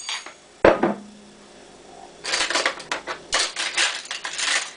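Metal kitchen utensils and cutlery clattering as someone searches through them for a tablespoon. There is one sharp clank with a brief ring about half a second in, then quick rattling from about two seconds on.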